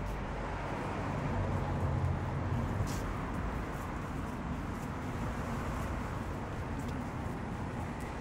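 Steady city traffic noise: a low rumble of passing vehicles under an even hiss, with a few faint clicks.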